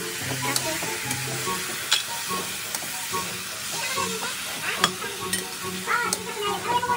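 Raw chicken pieces sizzling in a stainless steel frying pan as they are stirred with a metal spatula, which clicks and scrapes sharply against the pan several times over the steady sizzle.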